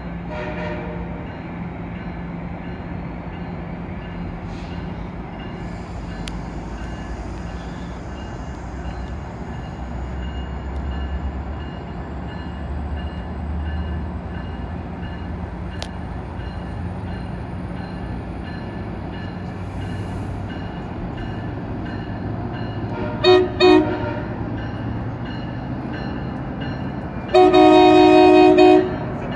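MARC MP36PH-3C diesel locomotive running steadily, then its multi-chime air horn sounds two short blasts and, a few seconds later, one longer, louder blast: horn warning for passengers at the platform's pedestrian crossing.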